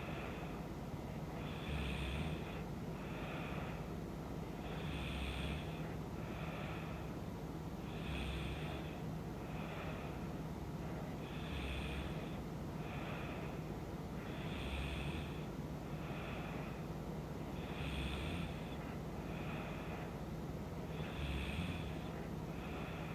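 A woman snoring in her sleep: slow, even snoring breaths, one about every three seconds, each a low rumble with a breathy hiss, over a steady low hum.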